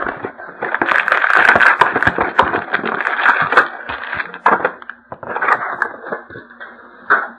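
Packaging of a trading card box being opened: crackling, crinkling plastic wrap and cardboard handled, densest in the first few seconds, then a few shorter rustles.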